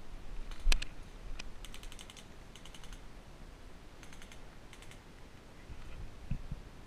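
Several short bursts of airsoft rifle fire, each a quick string of sharp cracks, with a louder single crack about a second in. A dull thump comes near the end.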